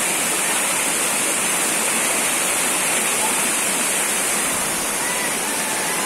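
Steady rush of a tall waterfall plunging over stepped rock ledges.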